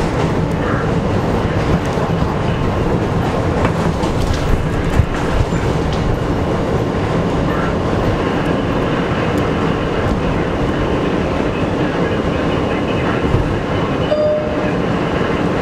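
R160 subway train running at speed, heard from inside the front car: a steady rumble of wheels on rail with clickety-clack over the track joints.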